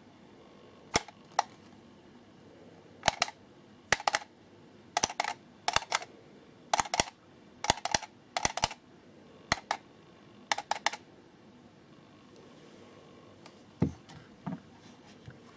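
A series of loud, sharp clicks, singly and in quick pairs and triples, about a dozen bursts over some ten seconds. They are made to set off the weather station's sound-activated backlight. Two softer knocks follow near the end.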